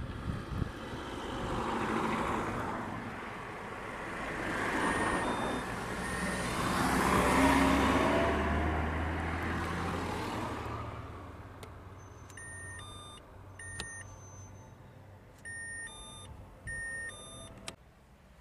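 Passing road traffic: vehicle noise with a low rumble swells and fades a few times, loudest about halfway through. In the last third comes a patterned run of short electronic beeps at a few different pitches.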